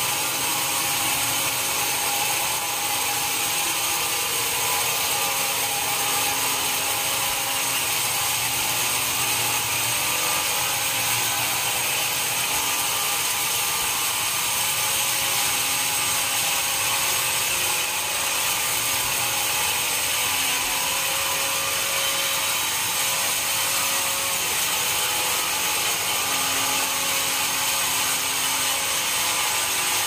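Vertical band sawmill running steadily, its blade sawing dry teak, with a steady high whine over the cutting noise.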